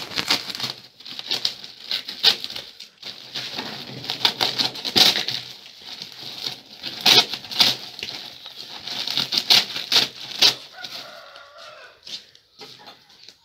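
A plastic feed sack full of corn being pulled and torn open at its top: a run of short, irregular ripping and crinkling sounds that ease off near the end.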